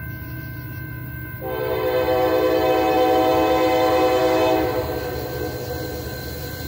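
Norfolk Southern locomotive air horn sounding one long chord blast of about three seconds, starting about a second and a half in, over the steady ringing of a grade-crossing bell.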